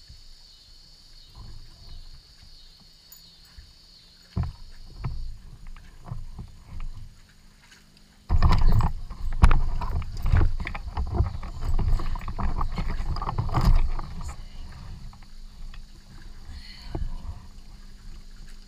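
Knocks, bumps and scraping on a kayak's hull and cockpit as a dog is lifted aboard and moves about inside. It starts with a single thump, and the busy knocking and rustling is loudest for about six seconds in the middle.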